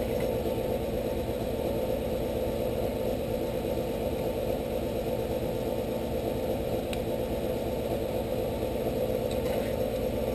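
Steady low machine hum, with one faint click about seven seconds in.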